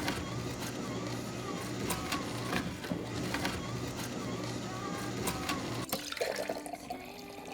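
Countertop blender running, grinding radish and pear pieces: a steady motor hum under a churning rush that cuts off about six seconds in. Light background music underneath.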